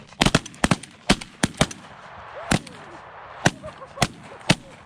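A volley of about eleven shotgun blasts from several hunters firing at geese, a rapid string in the first second and a half, then single shots spaced out toward the end.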